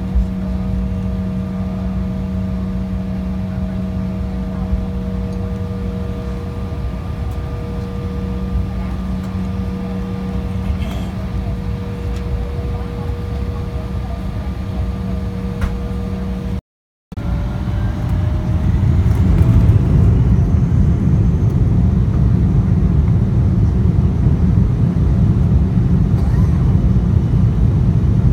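Jet airliner's engines heard from inside the cabin: a steady hum with several held tones. After a brief dropout about two-thirds of the way in, the engines spool up to takeoff power with a rising whine and grow to a louder, steady roar as the takeoff roll begins.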